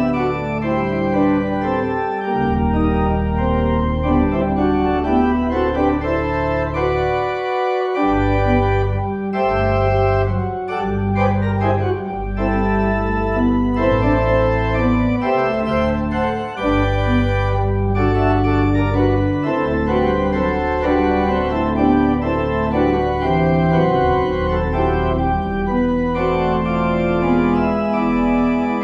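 Church organ playing the closing postlude: full sustained chords over held pedal bass notes, with a quick run of notes about ten seconds in.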